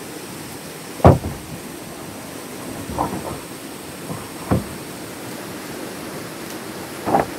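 Steady rain hiss with four separate sharp knocks at uneven intervals, the loudest about a second in.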